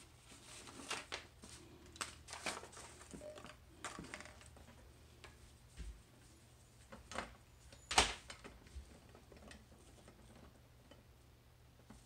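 Scattered light clicks and knocks of tools and parts being handled around a clamped coax connector during soldering, with a cluster in the first few seconds and one sharper knock about eight seconds in.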